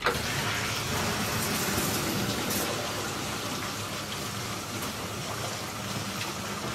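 Deep-well pump system switching on for its first run: water suddenly starts rushing through the new pipework and sand filter, with a steady low hum underneath.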